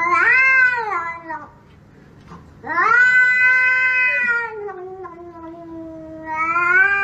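Cat yowling in long, drawn-out calls: a short yowl that rises and falls, then a much longer one that sinks lower in pitch and swells up again near the end.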